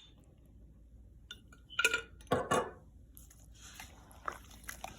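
Kitchen utensils clinking against a bowl, a few sharp knocks about two seconds in, followed by a soft steady hiss as the ingredients are handled.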